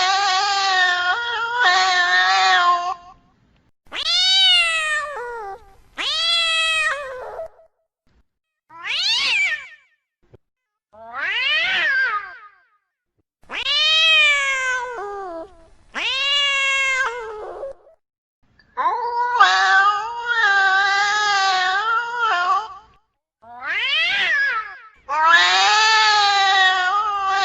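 Cats caterwauling in a fight: a run of loud, drawn-out yowls and howls, each a second or two long with short gaps between them, several rising then falling in pitch, and longer wavering howls near the start and the end.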